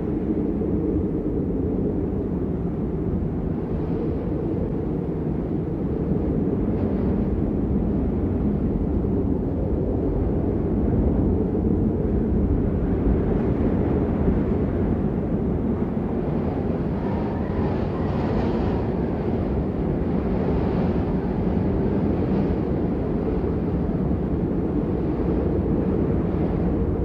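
Steady rain as a dense, deep rushing noise with no distinct drops, swelling slightly with a little more hiss about halfway through.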